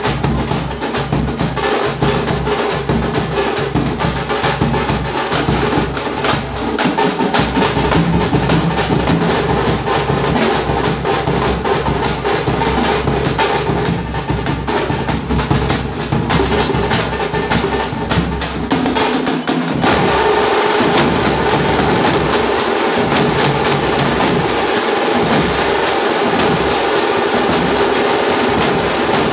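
A drum band playing a fast, dense rhythm on large double-headed bass drums struck with curved sticks, together with smaller hand-held drums. About twenty seconds in the rhythm changes and the playing gets a little louder.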